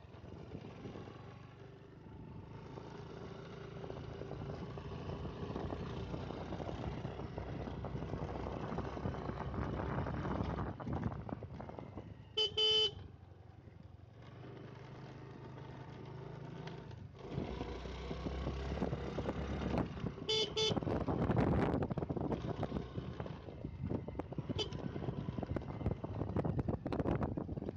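Motorcycle riding on a winding road: steady engine running and wind rush on the microphone, with a motorcycle horn beeping once about halfway through and twice in quick succession a few seconds later.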